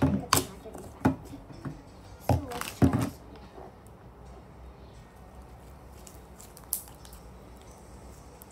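Clatter of a clear plastic slime tub being handled on a glass tabletop and opened: a few sharp clacks in the first three seconds, then quieter handling of the slime with one small click near seven seconds.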